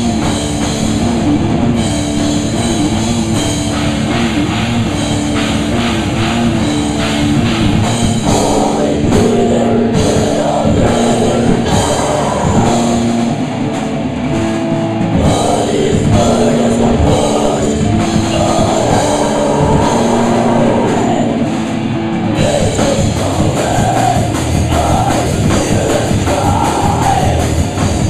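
Live heavy rock band playing: electric guitars and a drum kit with cymbals, loud and continuous, with held low notes and a wavering higher line coming in about eight seconds in.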